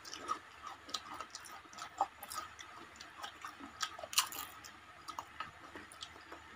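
Close-up eating sounds: crispy fried snacks bitten and chewed, with irregular crisp crackles and mouth clicks, the loudest bite about four seconds in.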